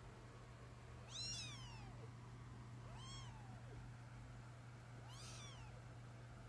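Kittens mewing: three faint, high-pitched mews about two seconds apart, each rising then falling in pitch, the first the loudest.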